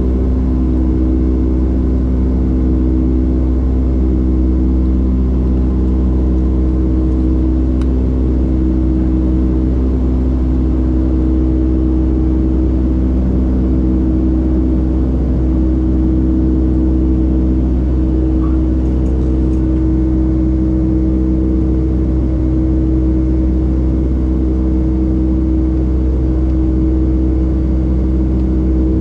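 Cabin noise of a Boeing 757-200 jet airliner climbing out after takeoff: a steady deep rumble of the engines and rushing air, with several steady humming engine tones over it.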